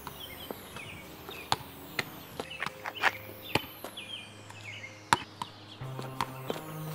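A soccer ball being juggled on foot and knee: about a dozen sharp, irregularly spaced taps as the ball is struck, with birds chirping.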